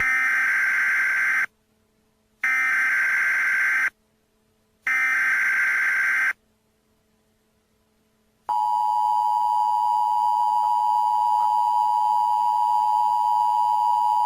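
Emergency Alert System SAME header: three bursts of digital data tones, each about a second and a half long with a second of silence between them. About eight seconds in, the steady two-tone EAS attention signal begins and holds.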